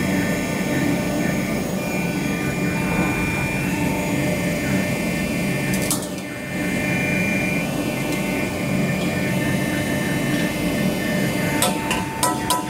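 Bronneberg alligator shear for catalytic converters running steadily, its electric motor and hydraulic drive humming, with one sharp knock about halfway and a few sharp metal knocks near the end.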